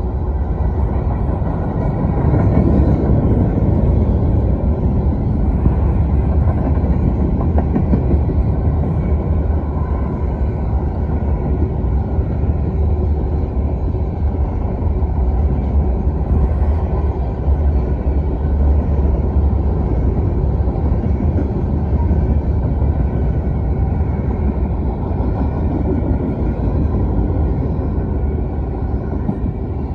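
Freight train cars passing at speed: a loud, steady rumble of wheels on the rails.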